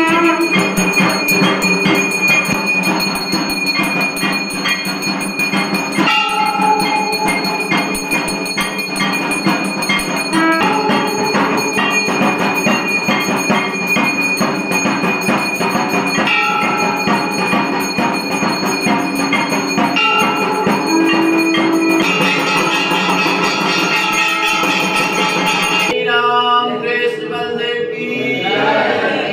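Brass aarti hand bell and temple bells rung fast and without a break, a dense ringing clangour mixed with other instruments. The texture changes about 26 seconds in.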